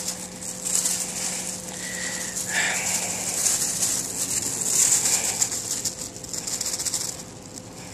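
Dry rustling and crackling as the plastic toner waste bin is shaken out into a plastic bag to empty the toner dust. A bird gives a short chirp about two seconds in.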